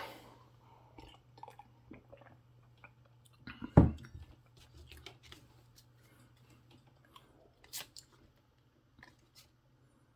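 Trading cards and their packaging being handled: faint scattered rustles and crinkly clicks, with one sharp knock nearly four seconds in and a lighter click near eight seconds.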